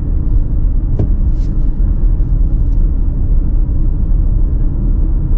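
Steady low rumble of a car's engine and tyres heard from inside the cabin while driving along a road, with a single sharp click about a second in.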